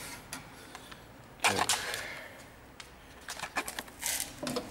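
Steel parts of a knife-making belt grinder being handled: one loud metal clunk with a short scraping ring about a second and a half in, then a few light clicks.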